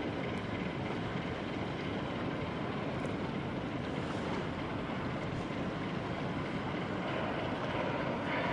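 Tugboat's diesel engine running steadily, heard as a continuous even noise with no distinct beat, over water and light wind.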